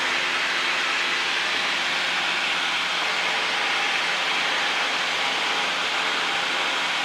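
Steady cabin noise of a Cessna 150 in flight: the engine and propeller drone blended with rushing air, an even hiss with a faint low hum that holds the same level throughout.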